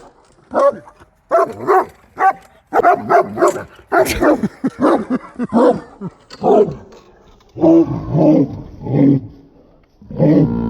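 Dog barking and growling in quick, irregular bursts, about fifteen of them, as it goes after a lawn mower.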